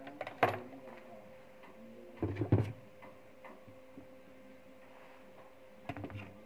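Hand tools being set down and picked up on a workbench: a click about half a second in, a louder cluster of knocks around two and a half seconds, and another click near the end, over a faint steady hum.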